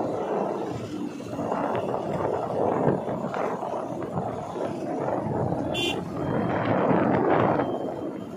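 Rushing road and wind noise while riding along in a moving vehicle, rising and falling in loudness, with a short high chirp about six seconds in.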